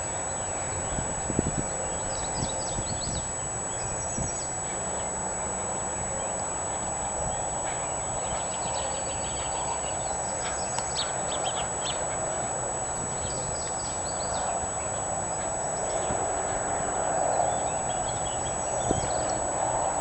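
Hoofbeats of a ridden horse moving around a soft sand arena, heard faintly from a distance over a steady outdoor background hiss, with birds chirping now and then.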